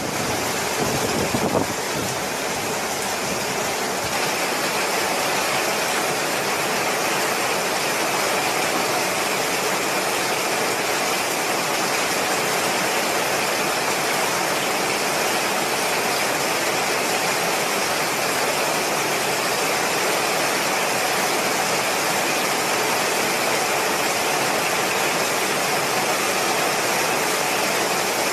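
Heavy rain and wind making a steady, even rushing hiss, with some low rumbling in the first two seconds.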